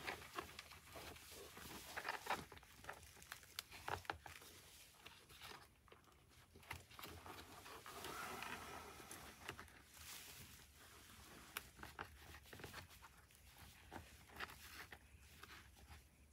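Faint handling noise: rustling and scattered small clicks as an intercom cable is worked into a motorcycle helmet's lining.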